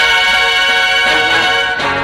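High school symphonic band playing full, brass to the fore with trombones and trumpets holding chords that change near the end.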